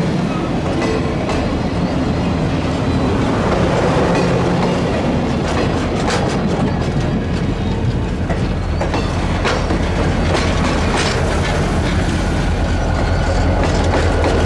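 Passenger cars of a train rolling past at close range, their wheels clicking irregularly over the rail joints under a steady rumble. From about two-thirds of the way in, a trailing diesel locomotive passes, adding a low steady engine hum.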